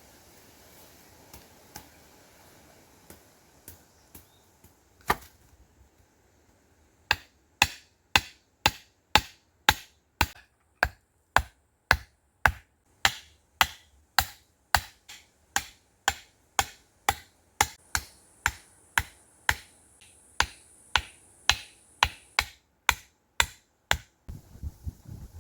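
Repeated chopping strikes: a few scattered blows, then a steady run of about two sharp chops a second that stops shortly before the end.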